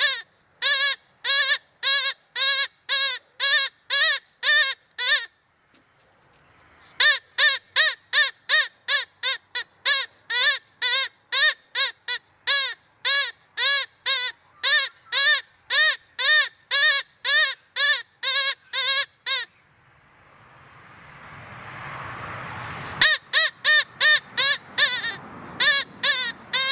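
Rabbit call: short squealing calls, each rising then falling in pitch, repeated evenly about two a second. The calls break off twice. During the second break a hiss swells, and then the calls resume.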